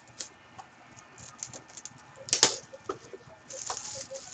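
Plastic shrink-wrap crinkling and rustling as it is pulled off a cardboard trading card box, with small clicks and taps of the box being handled. There is a louder crackle about two and a half seconds in, and steadier rustling near the end as the box is opened.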